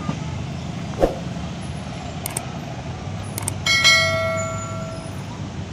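Motorcycle engines idling in a steady low rumble of traffic at a railway level crossing, with a knock about a second in. Two sharp clicks and then a bright bell ding that rings out over about a second sound partway through: a subscribe-button sound effect.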